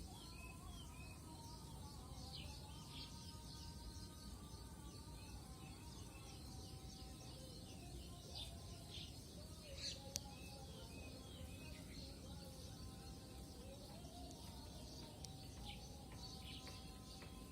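Small birds chirping and calling outdoors: many short, high chirps and hooked calls, faint over a steady low background hiss, with a few held lower tones in the background.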